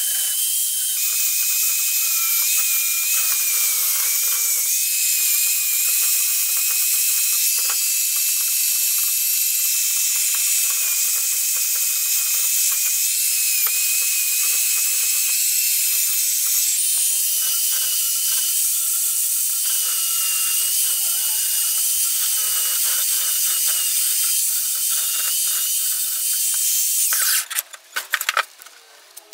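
Black & Decker electric drill spinning a wire brush against rusty steel pliers, wire-brushing off the rust: a steady high-pitched whine with a scratchy hiss, the pitch wavering as the brush is pressed on. The drill stops about two seconds before the end, followed by a few clicks.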